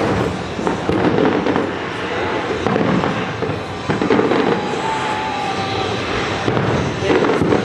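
Fireworks bursting in quick succession, bang after bang over a continuous rumble, with no break. A brief thin whistle sounds about five seconds in.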